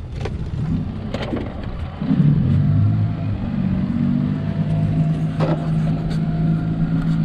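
Fishing boat's motor running, opening up about two seconds in and then holding a steady pitch, with a few knocks on the boat.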